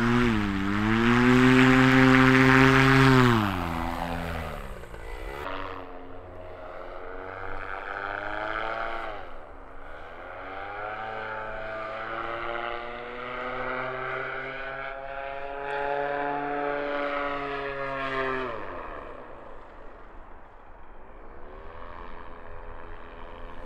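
Paramotor engine and propeller, loudest near the start at takeoff power, then heard in flight with its pitch rising and falling several times, dropping steeply near the end as it fades.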